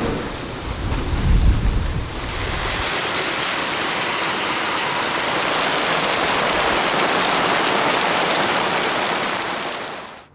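Steady heavy rain, with a low rumble of thunder in the first few seconds; the rain fades and cuts off right at the end.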